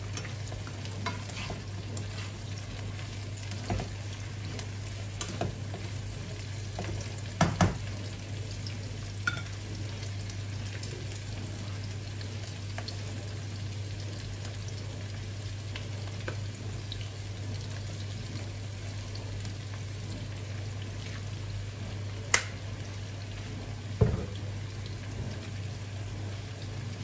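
Vegetables frying in hot oil in a nonstick frying pan, a steady sizzle, stirred with metal tongs that knock sharply against the pan a few times, loudest about a third of the way in and twice near the end.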